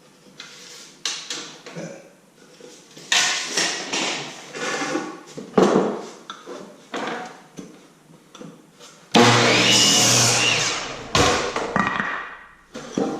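Wooden boards being handled and cut, with irregular knocks and scrapes, then a power saw running through a board for about two seconds near the end before cutting off.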